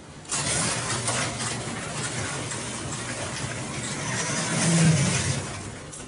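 Motor-driven industrial overhead door opening by remote control: a steady mechanical rumble and rattle as the door runs up its tracks, starting suddenly, loudest near the end, then dying away as it stops.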